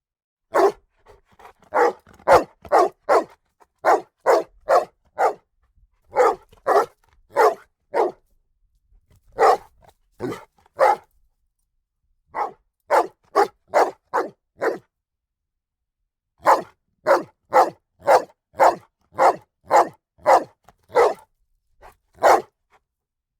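A dog barking in runs of short barks, two or three a second, broken by pauses of one to two seconds.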